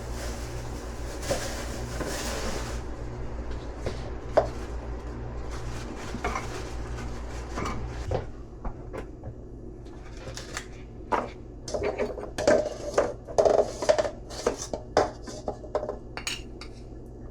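Dishes and utensils clattering and clinking, with a quick irregular run of knocks and clinks in the second half. A low steady hum underneath stops about eight seconds in.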